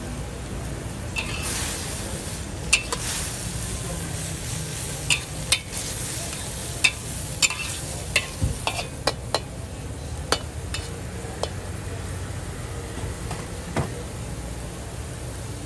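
Metal spatula scraping and clanking against an iron wok as flat rice noodles and cabbage are stir-fried, over a steady sizzle. The sharp knocks come irregularly from about a second in, thinning out after about eleven seconds.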